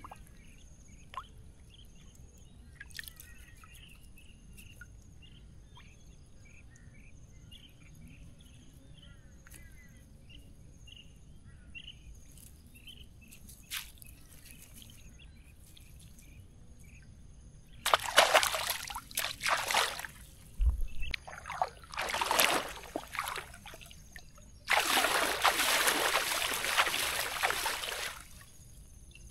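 River water sloshing and splashing around a collapsible net shrimp trap as it is worked in the water: three loud bouts in the second half, the last and longest near the end, after a quiet stretch with faint scattered chirps.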